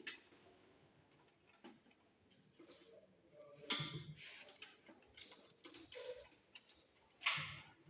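Screwdriver unscrewing the power supply unit's mounting screws from the back of a desktop computer case: faint scattered ticks and clicks, with two louder scrapes about four and seven seconds in.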